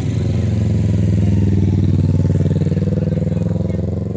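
Motorcycle engine running as the bike rides past close by, growing louder toward the middle and easing off near the end.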